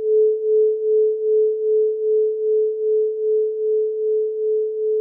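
A single steady pure tone, mid-pitched, swelling and fading about three times a second, with no other sound beneath it.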